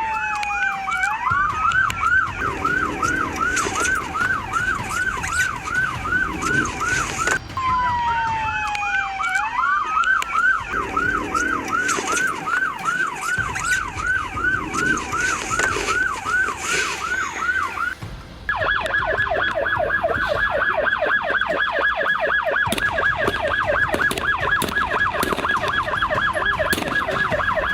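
Police car siren in a fast yelp, about three chirps a second, with a slower falling-and-rising siren sweep laid over it twice. About two-thirds of the way through it switches to a harsher, louder yelp with many overtones.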